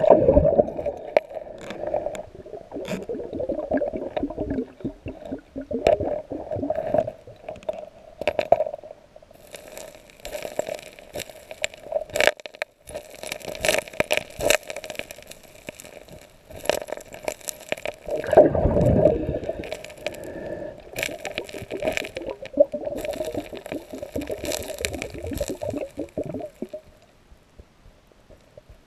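Gravel and cobbles being dug and shifted by a gloved hand underwater, heard through the camera underwater: stones clicking and scraping against each other over murky water gurgling, with a louder surge of water about two-thirds through.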